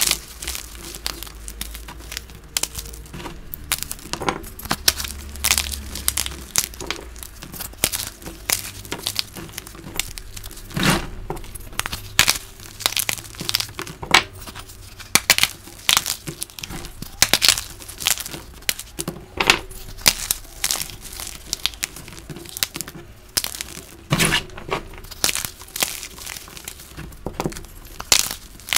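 Blocks of dyed gym chalk snapped and crushed between the fingers, giving irregular crisp cracks and crunches, sometimes several in quick succession, with crumbs pattering onto a pile of broken chalk.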